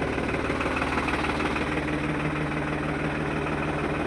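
New Holland 3630 tractor's diesel engine idling steadily.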